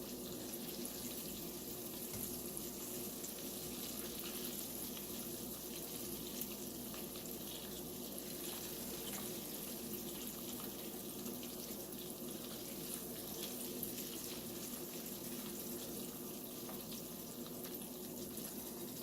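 Battered cauliflower pieces deep-frying in hot oil: a steady sizzle with fine crackling, over a steady low hum.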